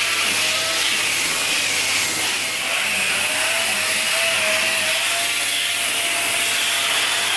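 Dyson Big Ball Animal cylinder vacuum cleaner running steadily, a loud rushing whine with a tone that wavers slightly in pitch, as its small attachment is worked over fabric sofa cushions.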